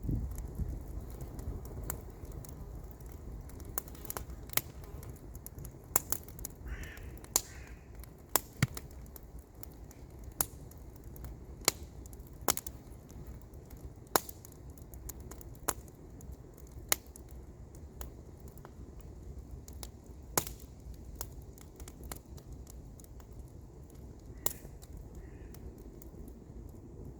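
Wood campfire crackling with irregular sharp pops, over a low steady rumble. A bird calls twice about a quarter of the way in, and faintly again near the end.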